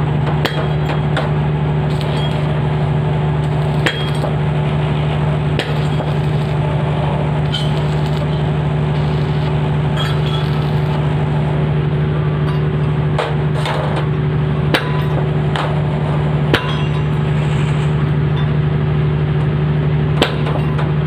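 A steady low machine hum throughout, with sharp metal clinks and taps every few seconds.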